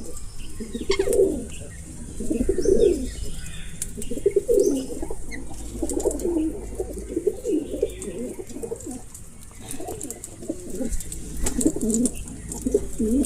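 Pigeons cooing over and over in low, rolling phrases, with faint higher bird chirps in between.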